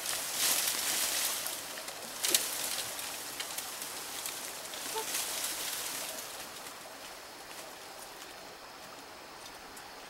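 Dry bamboo leaves and twigs rustling as they are pulled and handled, with one sharp crack about two seconds in; the rustling dies down in the second half.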